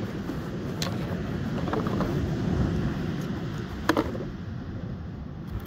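Steady low rumble of wind buffeting the microphone over the wash of sea surf, with two short sharp clicks, the louder one about four seconds in.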